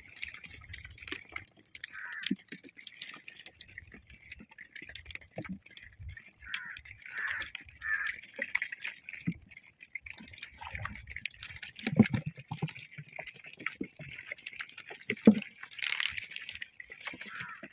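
Irregular wet drips, ticks and small splashes, with a few soft knocks, the loudest about twelve seconds in.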